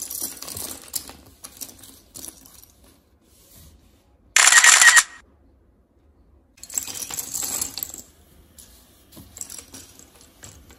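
Plastic Lego bricks clattering and clicking against one another and the tabletop as they are dropped from the hands and spread out, in several bunches of clicks. About four seconds in comes a louder, denser half-second rattle.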